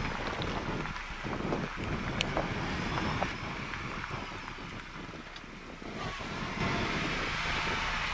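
2021 Ford Bronco crawling slowly on a rocky trail, its engine running at low revs under wind noise on the microphone, with a few sharp clicks in the first half.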